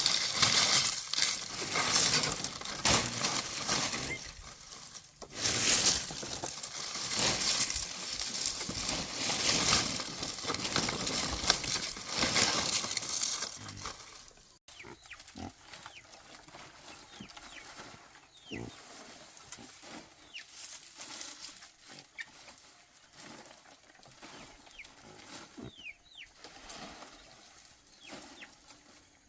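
Pigs making loud, noisy calls for about the first half. After a sudden break about halfway, it turns to quiet background with a few short bird chirps.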